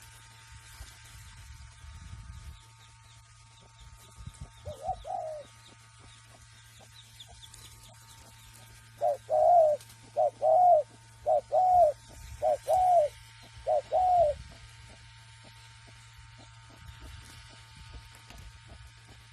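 Spotted dove cooing: one short two-part coo about five seconds in, then five loud two-note coos in a steady series.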